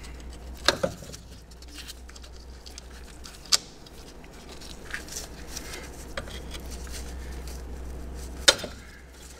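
Scattered sharp metallic clicks and taps, a few seconds apart, as a screwdriver pries the ABS wheel-speed-sensor cable and its grommet out of a steel bracket; the loudest click comes near the end. A faint low hum runs underneath.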